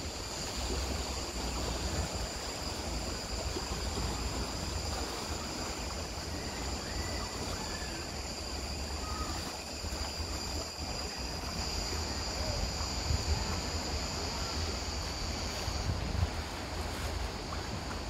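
Sea water washing against rocks, with wind rumbling on the microphone and a steady high-pitched hiss above it.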